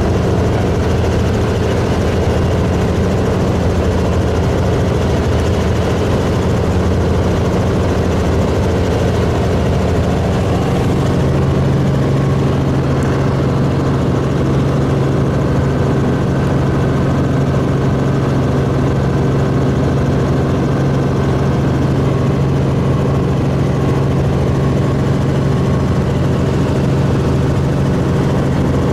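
Helicopter engine and rotor noise heard inside the cabin in flight: a loud, steady drone. About eleven seconds in, a low hum in it becomes stronger and holds.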